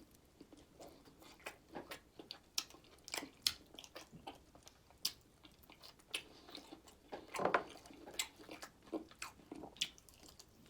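Close-miked chewing and biting of fried chicken wings: irregular crunches and wet mouth smacks, with one louder bite about seven and a half seconds in.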